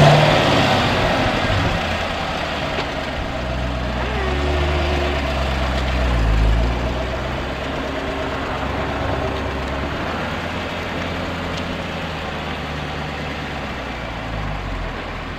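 2017 Chevrolet Corvette Stingray's 6.2-litre V8 running at low speed as the car rolls by. The engine note rises into a short rev at the start and swells again about six seconds in.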